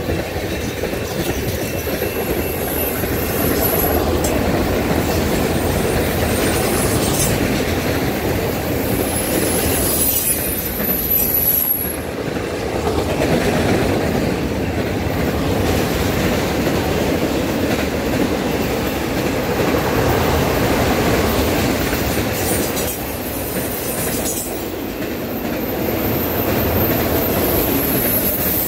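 Freight train cars, open-top gondolas and then enclosed autoracks, rolling past on a curve with a steady, loud rumble of wheels on rail. A thin, high wheel squeal comes in a few times, about two seconds in, around ten seconds in, and again near the end.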